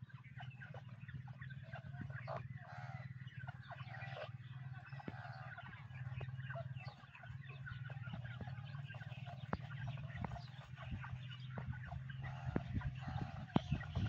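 A flock of young grey francolins giving many short, overlapping calls, over a steady low hum. Scattered sharp clicks grow more frequent near the end.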